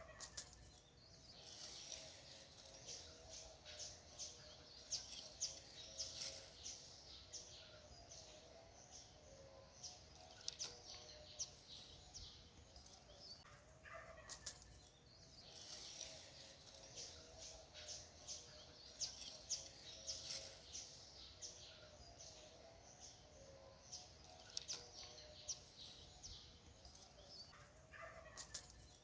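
Faint outdoor ambience with many short bird chirps scattered throughout, over a faint steady wavering tone.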